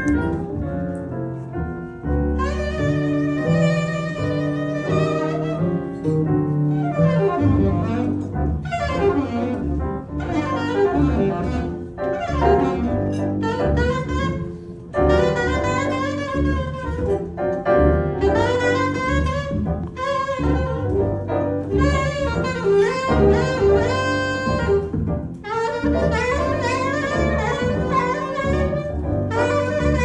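Live jazz: a saxophone playing melodic lines over acoustic piano and upright double bass.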